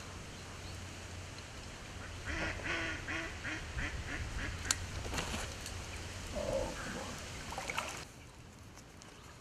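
Waterfowl calling: a quick run of about eight calls about two seconds in, then scattered single calls. A sharp click comes near the middle.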